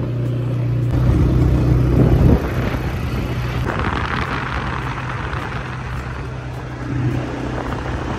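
ATV engine running steadily as the quad rides along a road. The engine is louder for about a second near the start, then eases off, and a rushing hiss of wind and road noise joins it from about four seconds in.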